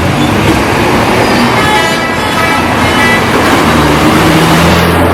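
Tour bus telolet horn sounding its multi-tone call about a second and a half in, for roughly a second and a half, the tones changing once partway through. A bus engine runs low underneath, becoming plainer near the end, over steady traffic noise.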